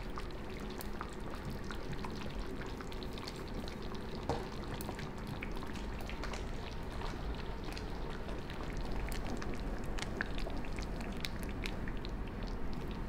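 Thick veal and mushroom stew (fricandó) simmering in a stainless steel pan, many small bubbles popping over a steady hiss, with one soft knock about four seconds in.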